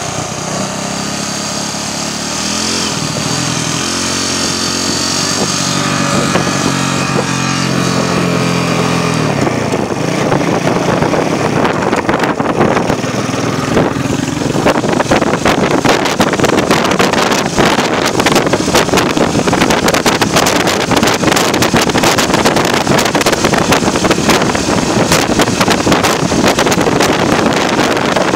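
Motorbike engine running at a steady pace while riding. About ten seconds in, rushing wind noise on the microphone rises and covers the engine note.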